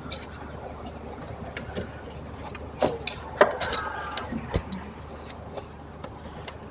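Scattered light clicks and knocks, with two louder knocks about three seconds in and a brief squeak just after, over a steady low hum.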